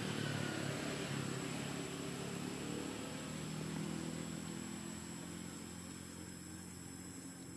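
A motor engine running steadily, its hum slowly fading, with a faint steady high tone above it.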